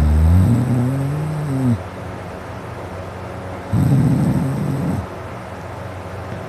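A man snoring deeply in his sleep, two snores about two seconds apart: the first drawn out with a pitch that rises and then falls, the second rougher and rattling. A steady low hum runs underneath.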